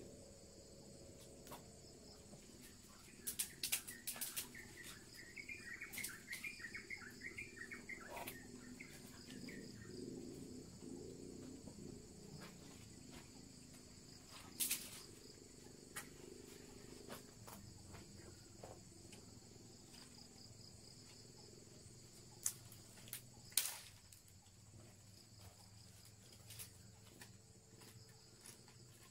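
Steady high chorus of crickets and other insects, with a few sharp snaps and cracks scattered through and a short warbling bird call a few seconds in.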